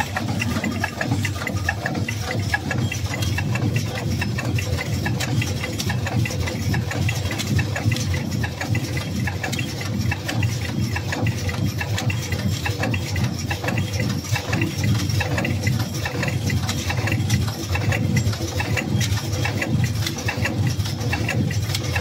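Automatic small-sachet packing machine running steadily, a continuous low mechanical hum with fast, even ticking from its working parts.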